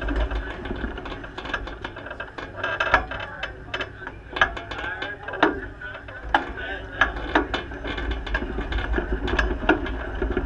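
Irregular clicks, knocks and rattles from the sprint car's chassis and running gear as it rolls slowly over the dirt pit lane, over a low rumble.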